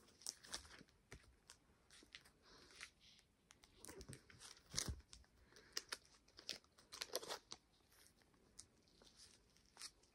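Faint, irregular crinkling and rustling of paper and plastic packaging being handled, with a brief louder crackle around the middle.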